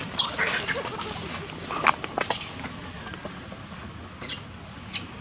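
Small monkeys giving short, high-pitched squeaks and chirps, some falling in pitch, loudest just after the start and again around two seconds in, with a few fainter ones near the end.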